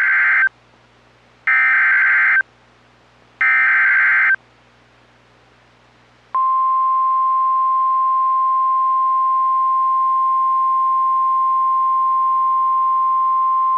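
NOAA Weather Radio alert signal: three one-second bursts of screeching SAME digital header data, a second apart, then about six seconds in a steady single-pitch 1050 Hz warning alarm tone that holds on. The sequence announces a new warning broadcast.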